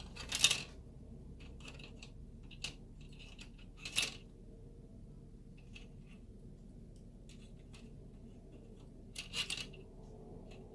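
Plastic model kit parts being cut from the runner with cutters: three sharp snips, the loudest about half a second in, another at about four seconds and a double one near the end. Light clicks from the plastic being handled come in between.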